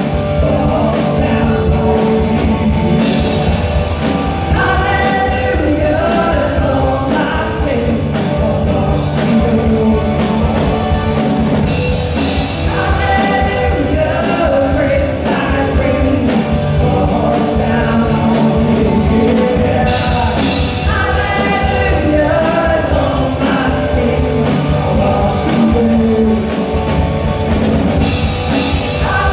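Live contemporary worship band playing a steady rock-style song: lead vocals over electric and acoustic guitars, bass, drum kit and keyboard.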